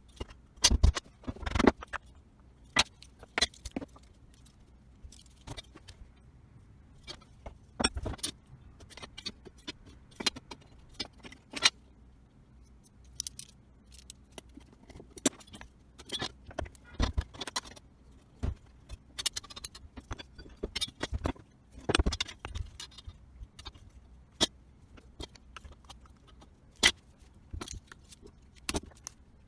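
Irregular knocks and metallic clinks of tools and small parts being handled, a few every second with short gaps.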